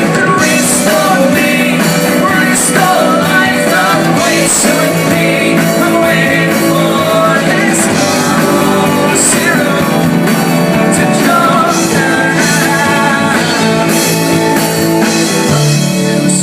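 Live rock band playing loud alternative rock, with a singer and recurring cymbal crashes over guitar, bass and drums.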